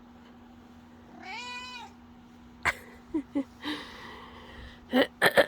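A black cat meows once, a single drawn-out meow that rises and falls in pitch, about a second in. A few short clicks follow, and sharper clicks come near the end.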